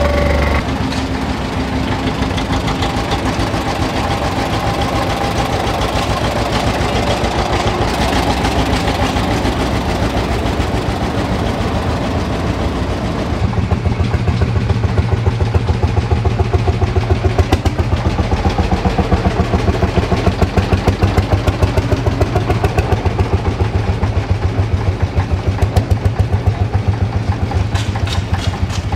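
Old tractor engines running as tractors drive slowly past. About halfway in, a heavy, evenly pulsing thump takes over: a Lanz Bulldog's single-cylinder two-stroke hot-bulb engine running at low revs.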